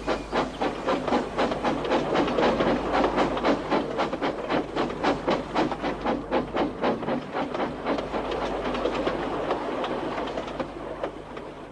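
Steam locomotive chuffing along at about three puffs a second, swelling louder and then fading away near the end as it passes.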